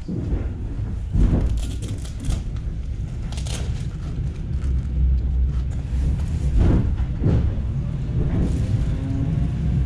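Electric commuter train running: a steady low rumble with several separate thuds.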